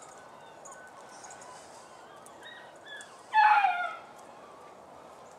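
A dog gives one short whine a little over three seconds in, its pitch falling slightly.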